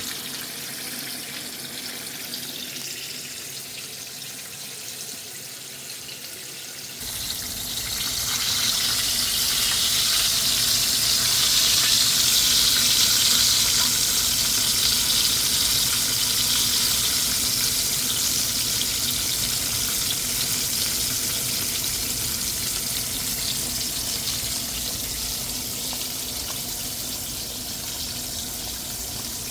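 Fish frying in hot oil in a pot: a steady sizzle that gets louder about seven seconds in, when a low rumble joins it, then slowly eases off.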